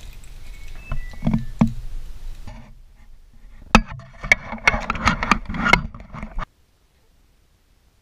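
Footsteps and handling noise from a handheld camera carried down stairs and into a room: a few dull thuds, then sharp clicks and rustling. The sound cuts out abruptly about two thirds of the way through.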